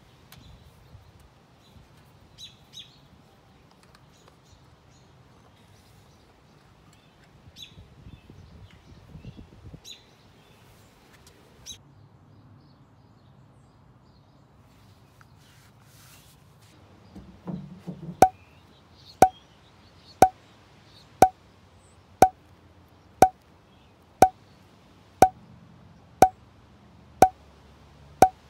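Birds chirping faintly with light handling noises, then a sharp, pitched tick once a second, eleven times in a row, starting about eighteen seconds in.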